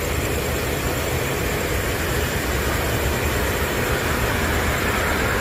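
Steady vehicle noise: a continuous low rumble with a hiss over it, without a break.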